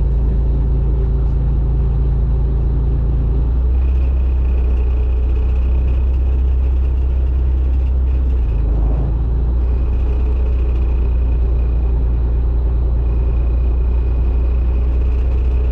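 Fishing boat's engine droning steadily, with a low hum and a thin high whine; the engine note shifts about three and a half seconds in and wavers briefly around eight and a half seconds.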